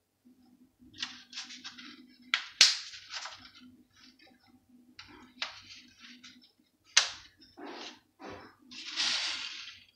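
A string of sharp clicks and knocks from handling, loudest about two and a half and seven seconds in, with a short hiss a little after nine seconds.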